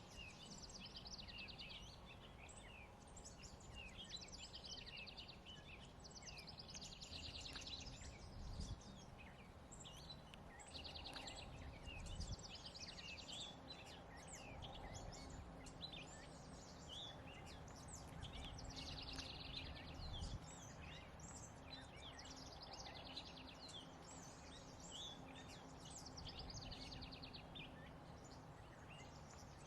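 Songbirds singing: a rapid trilled phrase repeated every two to three seconds, with scattered chirps between, over a low steady rumble and a few soft low thumps.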